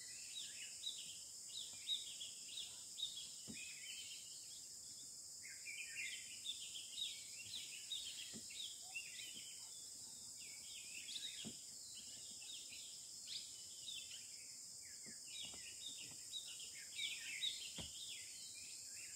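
Faint forest ambience: many small birds chirping in quick, overlapping calls over a steady high-pitched insect drone, with a few faint knocks.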